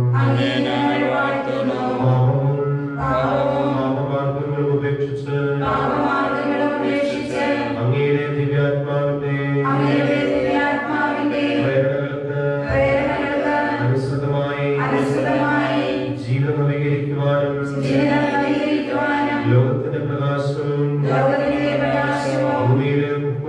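One man's voice chanting a liturgical prayer unaccompanied, on long held notes in phrases of a few seconds with short pauses for breath.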